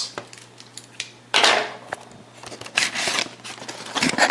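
Plastic packaging being handled and opened by hand: irregular rustling and crinkling in three bursts, with scattered sharp clicks.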